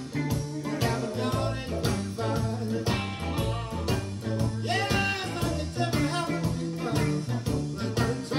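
A song with a male-free-to-tell sung vocal, guitar, bass and a steady drum beat, played back through EPOS hi-fi speakers and heard in the room.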